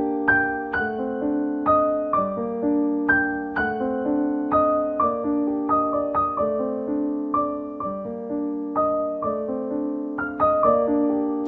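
Background music: gentle solo piano playing a slow melody over repeated chords, each note ringing and fading.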